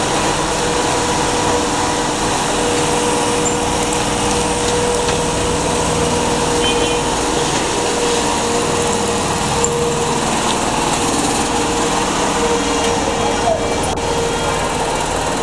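An engine running steadily with a constant hum, without changing pace.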